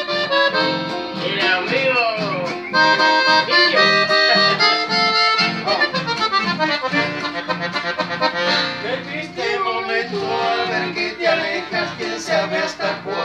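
Accordion and two nylon-string classical guitars playing an instrumental passage together, with no singing.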